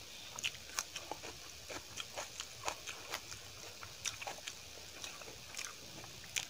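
Wet, sticky eating sounds: fingers squishing rice and dal on a steel plate, with chewing mouth smacks, as many irregular short clicks, a few each second.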